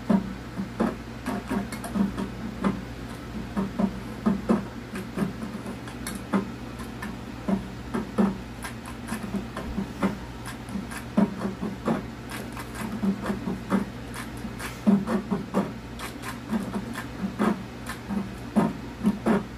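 A steady rhythm of light knocks and taps, about two to three a second with a few short breaks, over a constant low hum.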